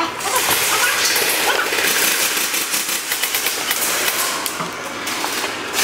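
Airsoft guns firing in rapid bursts, a quick string of sharp pops and clicks.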